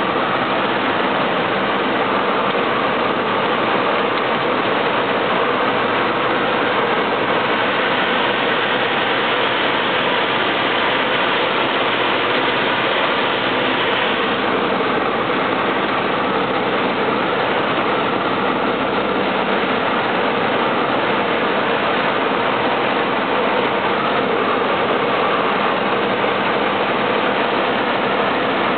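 Light single-engine propeller airplane's engine and propeller droning steadily in flight, heard from inside the cockpit with cabin and air noise.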